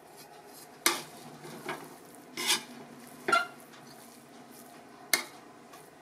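Metal ladle stirring and turning over cooked biryani rice in a metal pressure cooker, giving a few sharp knocks against the pot with softer scrapes in between.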